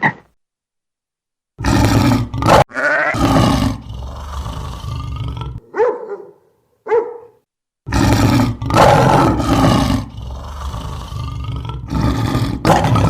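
A large animal roaring and growling in loud, rough bouts. It starts about a second and a half in, breaks off for two short calls about halfway through, then resumes.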